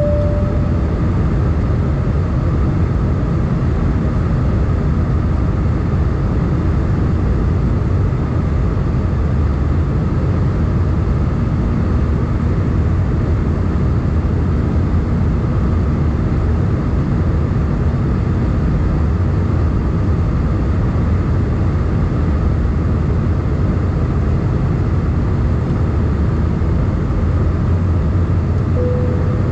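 Steady, even cabin drone of an Airbus A320 in flight, with engine and airflow noise heard from inside the cabin. A short single tone sounds at the very start and again near the end.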